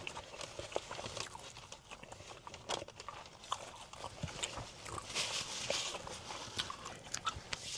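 A person eating close to the microphone: chewing with wet mouth clicks and lip smacks, and a short noisier spell of chewing a little past the middle.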